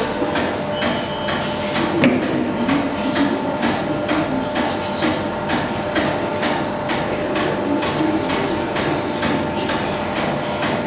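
Traditional vertical champagne basket press running through a pressing cycle: a steady machine hum with regular sharp clicks, about three a second.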